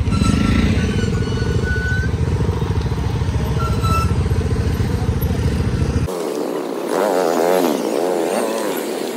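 Motorcycle engine running under way, a dense low rumble with wind noise. About six seconds in it cuts off abruptly, giving way to a different sound made of wavering pitched tones.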